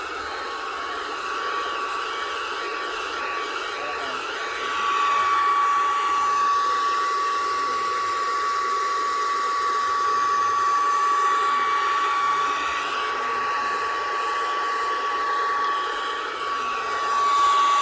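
Handheld hair dryer running steadily, a rushing blow with a thin whine, turned up louder about five seconds in and switched off abruptly at the end.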